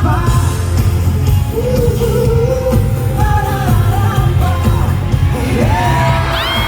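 Loud pop music with a heavy, steady bass line and a wavering sung melody; high gliding tones join in near the end.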